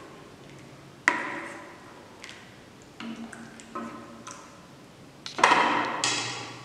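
A plastic ladle knocking against the sides of a metal cooking pot during stirring. There are a handful of sharp knocks that each ring briefly, and the loudest cluster comes near the end.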